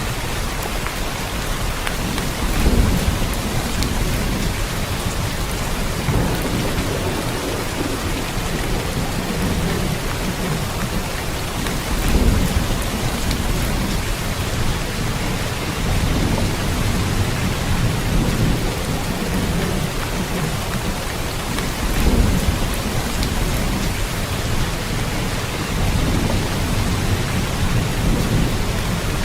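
Steady heavy rain, an even hiss, with low rumbles of distant thunder swelling up several times.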